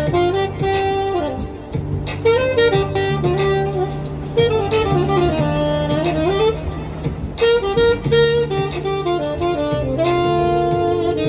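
Saxophone played live into a microphone, a melody of held notes and quick stepwise runs, over a backing track with a bass line and a beat.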